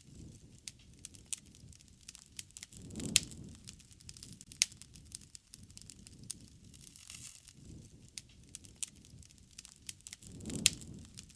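Wood fire crackling, with scattered sharp pops over a low rumble of flame. The rumble swells twice, about three seconds in and near the end, each time with the loudest pops.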